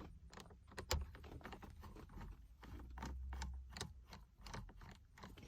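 Light, irregular clicks and small metallic rattles of a T20 Torx driver working the airbag's retaining screw loose behind the steering wheel.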